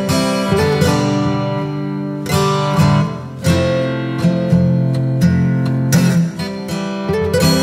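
Background music: acoustic guitar strumming chords, with ringing sustained notes between the strums.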